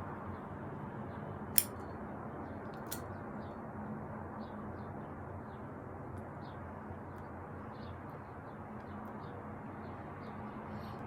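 Steady background noise with a faint hum, broken by a single sharp click about a second and a half in and a fainter click about a second later, with faint high chirps here and there.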